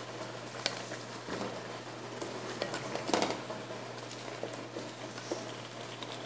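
Chicken pieces being stirred and turned in a thick sauce in an enamelled pot with a wooden spatula and a silicone spatula: scraping with a few light knocks against the pot, the most marked about three seconds in, over a steady low hum.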